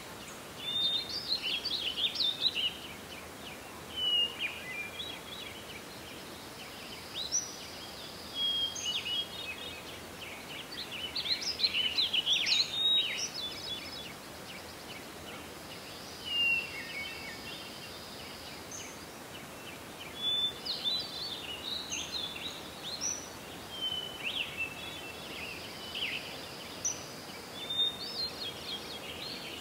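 A songbird singing short, busy phrases of chirps and quick sweeps, one phrase every few seconds, over a steady outdoor background hiss.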